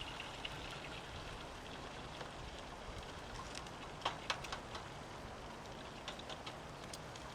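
Heavy rain falling over a steady rush of water, with single drops tapping sharply on a nearby surface; two loud taps come about four seconds in.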